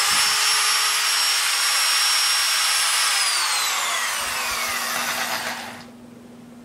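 Corded electric drill's brushed universal motor running at full speed with a high whine, then released about three seconds in and spinning down, the whine falling in pitch until it stops about six seconds in.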